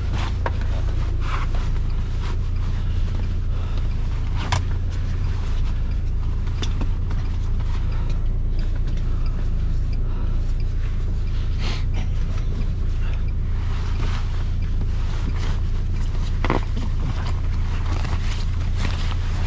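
UAZ Patriot's engine running steadily with a low hum, and a few short knocks about four, twelve and sixteen seconds in.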